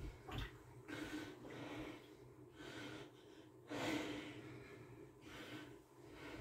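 A person breathing heavily, several breaths a second or so apart, the loudest about four seconds in.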